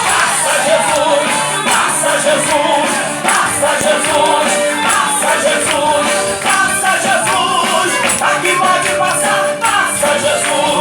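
Live gospel worship music: voices singing over a band, with jingling tambourine-like percussion.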